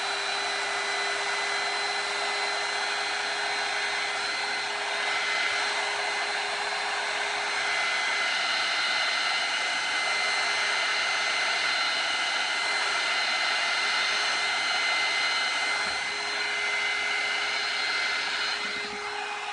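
Handheld heat gun running steadily, its fan giving a constant rush of air with a steady humming tone as it blows over wet acrylic paint. It switches off near the end.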